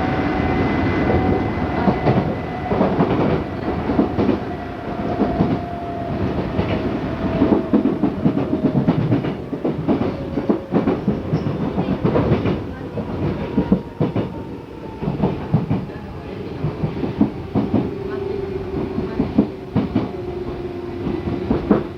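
Odakyu 8000 series electric train running, heard from inside the car: wheels clicking irregularly over rail joints over a steady rumble, with a traction-motor whine that falls slowly in pitch as the train slows.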